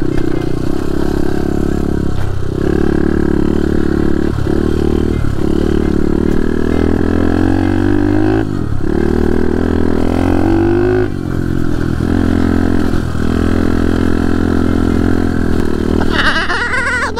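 Pit bike's small single-cylinder engine running under way, its pitch climbing as it accelerates, with several short drops as the throttle eases. A brief, higher wavering sound comes in near the end.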